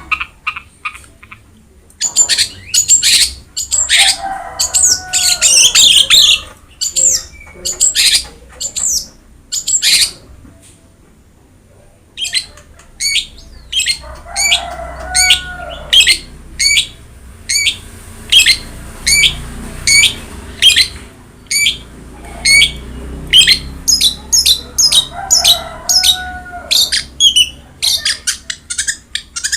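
Long-tailed shrike (cendet) singing loudly: fast runs of sharp, high chips and whistles, broken by harsher, lower chattering phrases every ten seconds or so. About ten seconds in it goes quiet briefly, then resumes as a steady string of sharp notes at about two or three a second.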